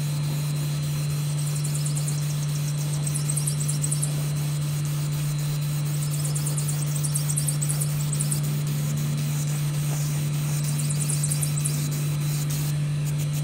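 Aerosol spray-paint can hissing as semi-gloss black is sprayed onto sheet metal in passes, over a steady low hum. Three short spells of fast high ticking come a couple of seconds in, around the middle, and near the end.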